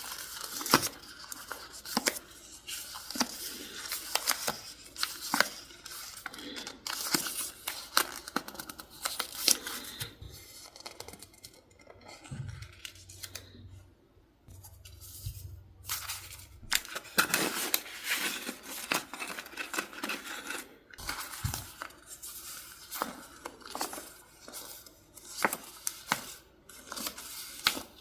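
Paper crafting sounds: scissors snipping and paper or sticker sheets tearing and rustling, a steady run of short crisp snips and crinkles that goes quieter for a few seconds midway.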